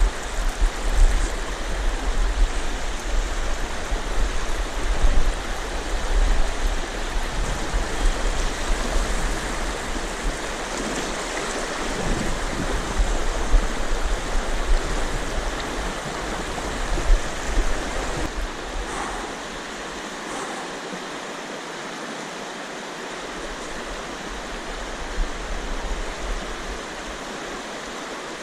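Fast river water rushing over rocky riffles, a steady even rush heard close up. A low rumble underneath comes and goes, dropping out for stretches in the second half.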